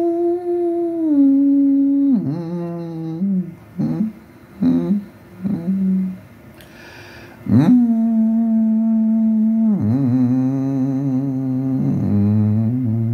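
A man humming a slow, wordless tune with his lips closed: long held notes that step down in pitch, a few short hummed notes in the middle, and a breath about seven seconds in. A deeper tone sounds beneath the last long note near the end.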